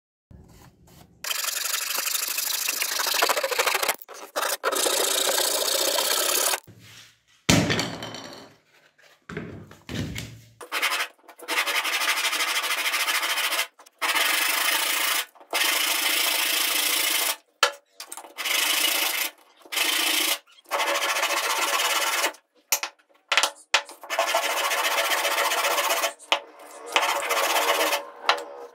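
A small board piece being sanded by hand on a sheet of sandpaper: a steady rasping scrape in stretches of a few seconds, broken by short pauses. A single loud thump comes about a quarter of the way in.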